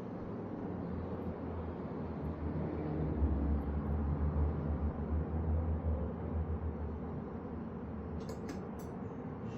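A low rumble swells and fades over several seconds, like a vehicle going by; near the end, a few quick clicks of parts being handled.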